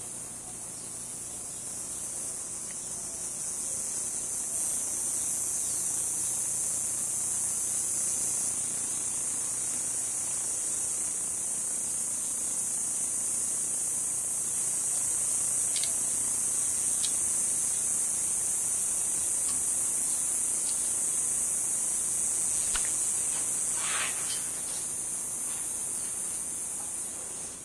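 Steady high-pitched drone of an insect chorus, swelling about four seconds in and easing near the end, with a few faint clicks in the second half.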